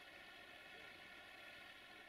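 Near silence: a faint, steady hiss and hum with no distinct events.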